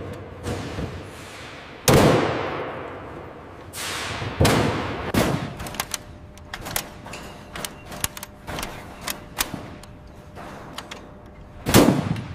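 A belt-fed machine gun being loaded, with a series of sharp metallic clacks and clicks. A few loud bangs stand out, the first ringing on for a couple of seconds, and quicker light clicks follow in the middle stretch.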